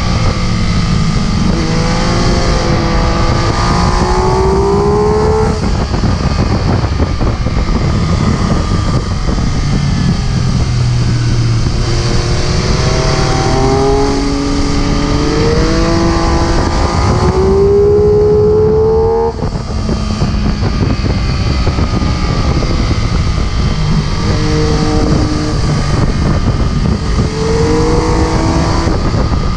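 MV Agusta F3 675's inline three-cylinder engine under way, its pitch climbing again and again as the rider accelerates, over steady wind and road rush on the microphone. The longest climb ends about two-thirds through with a sudden drop as the throttle closes.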